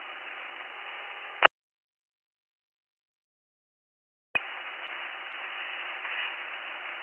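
Two-way radio static: steady hiss on an open fire-dispatch channel between transmissions. It cuts off with a click about a second and a half in, leaving dead silence for about three seconds, and a click then brings the hiss back.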